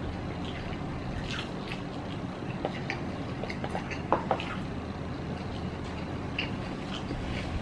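Mouth sounds of a man eating instant cup ramen: small wet smacks and clicks of chewing scattered through, with a couple of sharper clicks about four seconds in, over a steady low background hum.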